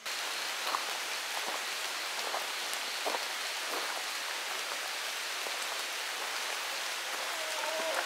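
Rain falling on rainforest foliage: a steady hiss with single drops striking the leaves now and then.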